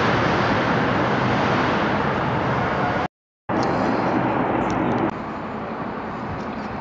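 Steady rush of wind and road noise in an open-top convertible on the move. It breaks off briefly about three seconds in, then a similar steady rushing goes on and drops lower about five seconds in.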